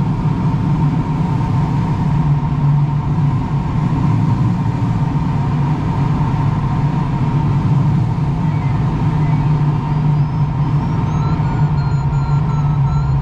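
Steady rush of air and a low drone heard inside a sailplane's cockpit while it is towed aloft behind a tow plane.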